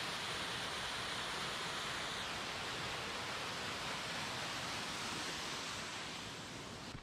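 Small waterfall plunging over rock into a pool: a steady rush of falling water, easing off a little near the end.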